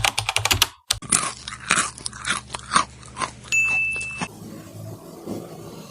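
Close-miked eating: a run of crunchy bites and chewing, with a short steady high-pitched tone a little past the middle, then softer, quieter chewing near the end.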